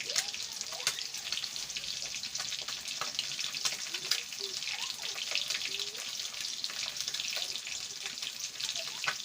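Food frying, a steady sizzle with constant fine crackling.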